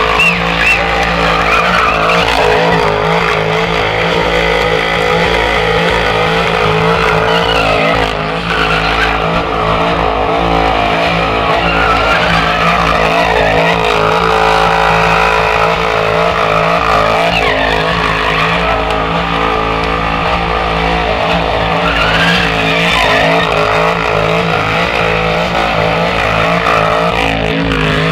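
Holden VE Commodore doing a burnout: the engine held at high revs, wavering slightly, while the spinning rear tyres squeal and skid on the spot, loud and continuous.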